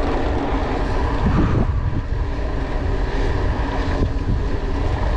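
Steady wind rumble on the microphone of a moving mountain bike, with a faint steady hum underneath.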